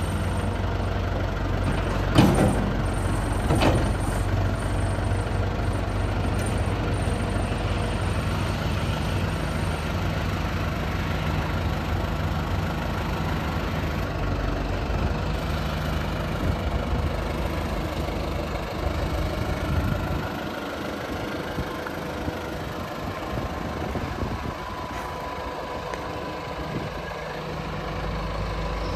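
JCB 214S Series 3 backhoe loader's diesel engine idling steadily, with two sharp knocks about two and three and a half seconds in. The deep part of the engine sound weakens about two-thirds of the way through and returns near the end.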